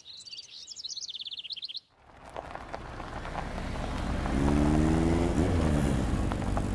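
Birds chirping, with a quick run of trilled notes, for the first couple of seconds; then they cut off. After a brief gap a steady rushing background noise builds up, with a low humming tone near the middle, like passing traffic.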